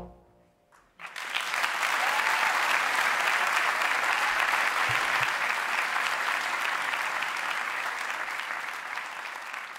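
A big band's final chord cuts off, and about a second later an audience bursts into applause. The applause holds steady, then thins out near the end.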